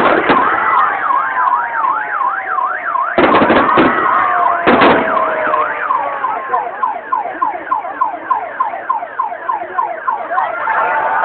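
A few loud fireworks bangs, near the start and around three and five seconds in, over a siren sweeping rapidly up and down in a yelp. After about six seconds the siren changes to a quicker run of repeated falling sweeps.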